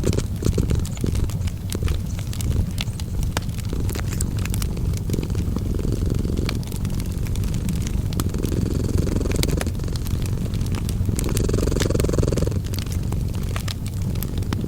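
Cat purring: a continuous low rumble that swells and eases with each breath every couple of seconds. Over it, a wood fire crackles with scattered small sharp pops.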